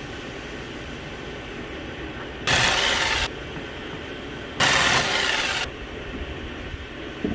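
Aluminium frame being cut with a power tool in short bursts of loud hissing, about a second each, twice, over a steady low running noise.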